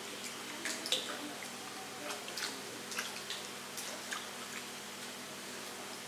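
Small irregular splashes and drips of water in a concrete fish tank as fish stir and jump at the surface, most of them in the first four seconds, over a steady faint hum.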